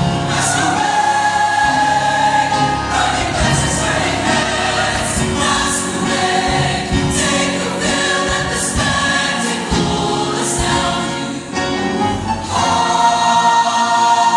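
A mixed-voice show choir singing with instrumental backing; about twelve and a half seconds in, the voices swell into a loud held chord.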